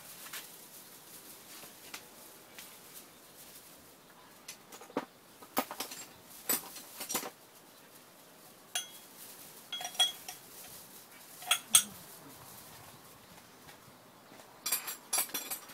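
Scattered sharp metallic clinks and knocks of aluminium engine parts being handled on a partly dismantled Koshin engine pump, with a quick run of clinks near the end.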